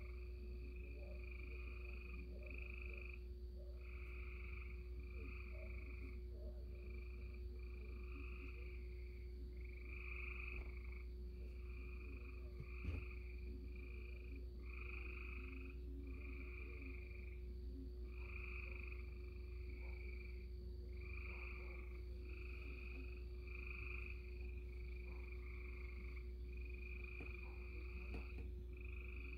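A chorus of frogs calling, short calls of about half a second repeating roughly once a second and overlapping one another, over a steady low hum. A single click comes about halfway through.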